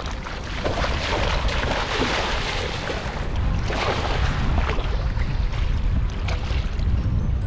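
Legs wading and splashing through shallow water, then a cast net landing on the water in a spray of splashes about four seconds in. Steady wind rumble on the microphone underneath.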